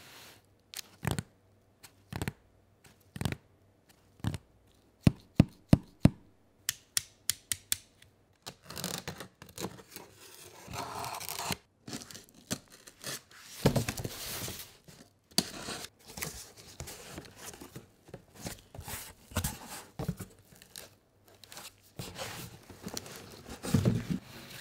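A run of sharp clicks and taps, then a utility knife slicing through the packing tape of a cardboard shipping box, followed by cardboard flaps scraping, rubbing and thudding as the box is opened.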